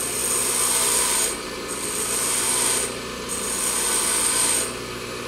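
High-speed steel tool bit being ground by hand against a running bench grinder wheel: three spells of high grinding hiss, each about a second long with short breaks between, over the steady hum of the grinder motor. The grinding stops a little before the end.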